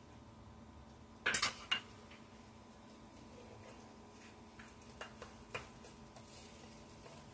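A spoon knocking and clinking against a ceramic crock while stirring a wet breadcrumb, milk and egg mixture. A loud cluster of knocks comes about a second in, then a few lighter taps later.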